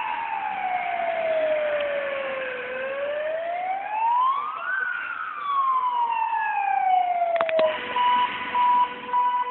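Fire engine siren on a Star 244 fire truck, wailing on an emergency run. It sweeps slowly down, up and down again, a couple of seconds for each sweep. Near the end it stops after a couple of clicks, and a steady tone that comes and goes takes over.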